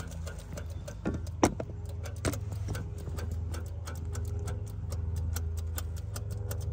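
Irregular sharp clicks and crackles as a jumper wire from a battery is touched to a corroded semi-truck starter solenoid, over a steady low hum.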